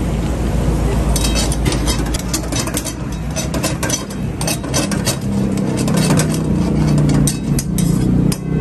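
Flat metal ladle scraping and clinking against a steel karahi wok as mutton pieces are stirred and fried, many quick metallic clicks from about a second in, over a steady low rumble from the gas burner.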